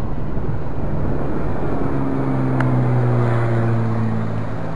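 Engine drone of a small aircraft flying overhead. It comes in about two seconds in as a steady low hum, drifting slightly lower in pitch, over a constant rush of surf and wind.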